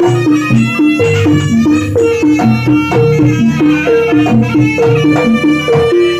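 Javanese jaranan accompaniment music: a traditional ensemble plays a fast, evenly repeating melodic figure over drums, with a high melody line held on top.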